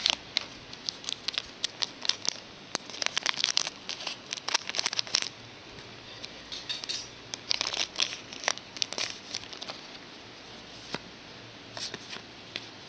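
Trading card pack wrapper crinkling and tearing as a pack is opened and the cards are handled. The crackling comes in dense clusters over the first few seconds and again around the middle, then thins out.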